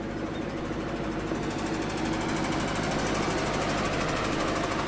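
Diesel engine of an Atlas 1404 wheeled excavator running as the machine drives past, a steady fast rattle that grows a little louder.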